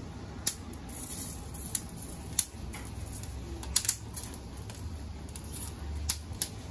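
Metal kitchen utensils clicking: a spoon tapping a saucepan and metal tongs clacking over a cast-iron grill pan, about seven sharp clicks spread irregularly, some in quick pairs. A low steady hum runs underneath.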